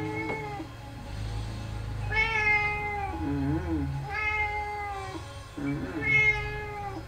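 House cat meowing repeatedly, one long meow about every two seconds, with short wavering chirps between the meows.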